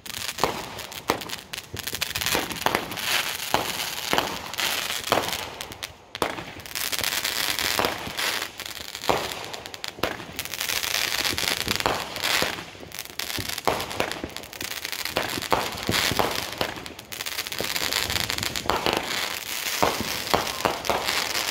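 Consumer aerial fireworks firing in quick succession: a continuous hiss with many sharp pops and bangs as shells launch and burst overhead.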